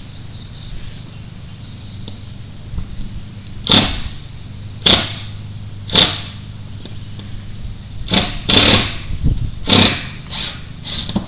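Cordless drill/driver running in short bursts, about eight in the second half, driving or backing out fence screws, over a steady low hum.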